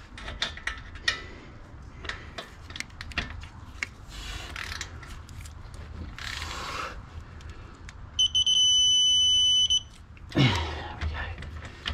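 Irregular ratchet clicks as a ball joint bolt is tightened with a digital torque adapter. About eight seconds in, the adapter gives a loud, steady high beep lasting about a second and a half, the signal that the set torque has been reached.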